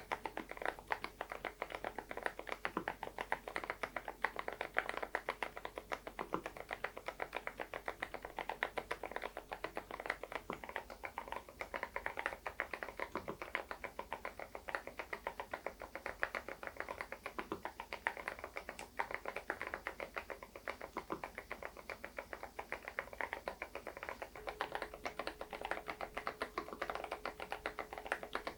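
Continuous typing on an SPM PL108W full-size keyboard with stock, unlubricated low-noise Moksae switches: a dense, steady run of keystrokes, many per second.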